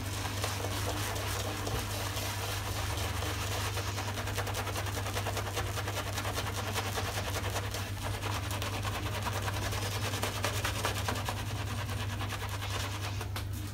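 New, stiff boar-bristle shaving brush (Omega Pro boar knot) face-lathering: the bristles scrubbing quickly and steadily through wet lather over stubble, a dense fast scratchy brushing. A steady low hum runs underneath.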